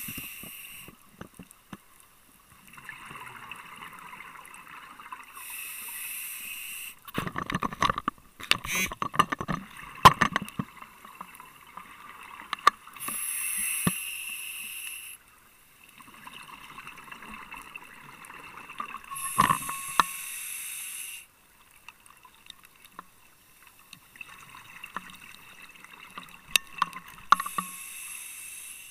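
Scuba diver breathing through a regulator underwater. Drawn-out inhalations through the regulator alternate with louder bursts of exhaled bubbles, over several breaths.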